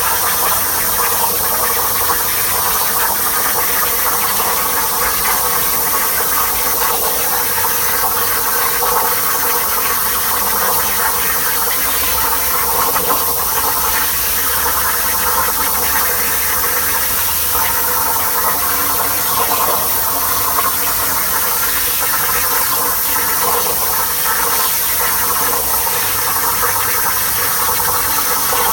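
CNC plasma cutter at work: the plasma torch's arc and compressed air give a steady, loud hiss.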